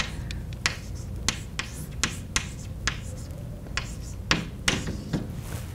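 Chalk writing on a blackboard: a dozen or so short taps and scrapes of the chalk stick at irregular intervals as an equation is written.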